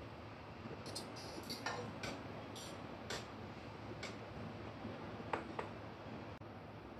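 Faint, irregular light clinks and ticks of a metal utensil against a stainless steel wok as boiled pumpkin pieces are scooped out into a bowl, about ten in all and spread through the first six seconds.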